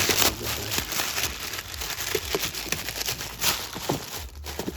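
Plastic being handled and crinkled, a dense crackling with scattered small clicks that thins out near the end.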